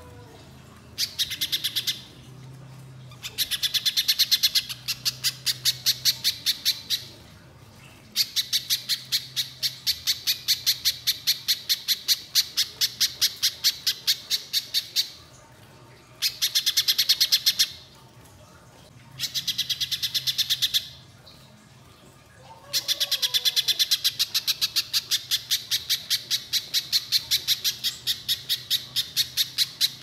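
Little spiderhunter calling in bouts of rapid, sharp repeated notes, about four a second. Each bout lasts from one to several seconds, with short pauses between them.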